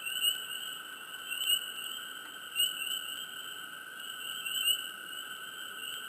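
Swamp frogs chirping in a chorus: a steady trilling drone with louder close chirps standing out about once a second.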